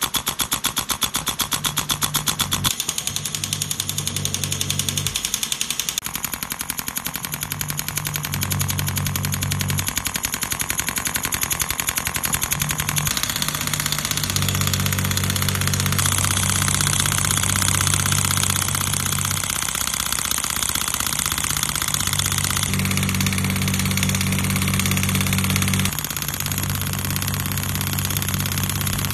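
Radial shockwave therapy handpiece firing rapid pneumatic strikes against the skin at 16 Hz and 3.0 bar, a fast even clicking. A low hum from the machine cuts in and out several times under it.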